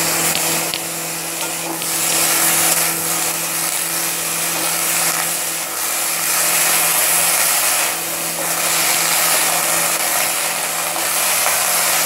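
Steamed broccoli florets sizzling as they fry lightly in hot oil in a kadai: a steady hiss, with a low steady hum underneath.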